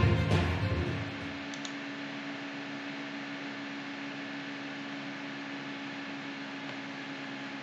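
Intro theme music fading out in the first second or so, then a steady background hiss with a faint low hum.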